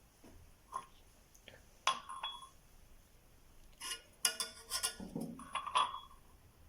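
Glassware and utensils clinking in a kitchen: a few separate clinks, then a quick run of ringing clinks about four to five seconds in.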